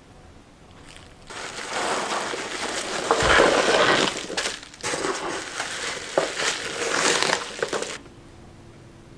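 Plastic packaging crinkling and crunching as it is handled and unwrapped, starting about a second in and stopping shortly before the end, loudest in the middle with two brief pauses.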